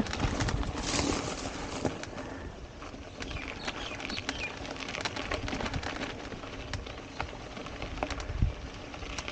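Mountain bike riding over a dry dirt trail: tyres rumbling and crunching on dirt and loose stones, with frequent sharp clicks and rattles as the bike goes over bumps.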